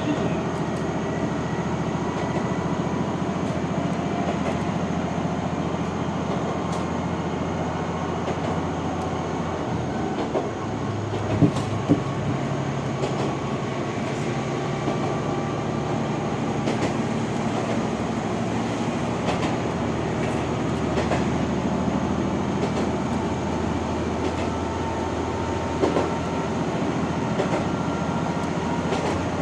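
Diesel railcar running along the line, heard from on board: a steady engine drone with wheel and rail noise, the engine note shifting about ten seconds in, and a few sharp clacks over rail joints.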